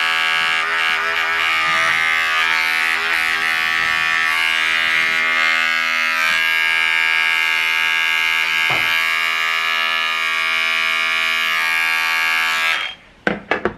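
Cordless electric pet clipper running with a steady buzzing hum as it trims a puppy's leg and paw fur. It stops abruptly near the end, and a few clicks follow.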